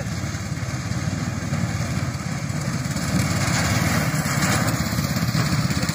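Small engine of a miniature semi-truck go-kart running as it drives on a dirt path. It gets louder about three seconds in as the kart comes close, with a rushing noise from its wheels on the dirt.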